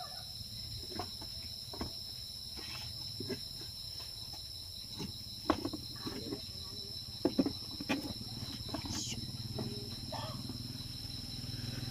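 Crickets trilling steadily at a high pitch, with scattered light clicks and knocks over a low hum.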